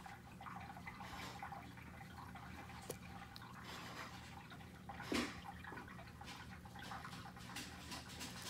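Faint room tone: a steady low hum with scattered small clicks and rustles, a sharp click about three seconds in and a brief louder noise just after five seconds.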